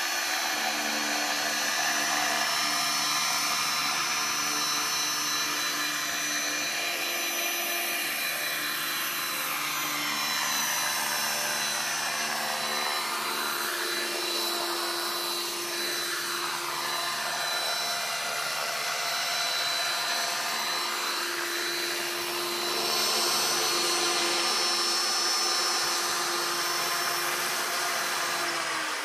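Large radio-controlled model helicopter's motor and rotor running with a steady whine and a swirling, phasing wash. Near the end the pitch slides down as the rotor spins down.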